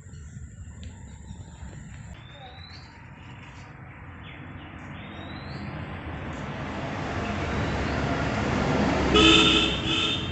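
A vehicle approaching and growing steadily louder, then sounding its horn briefly near the end. A few bird chirps are heard earlier.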